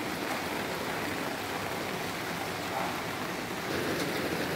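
Steady rain falling on a yard, an even hiss.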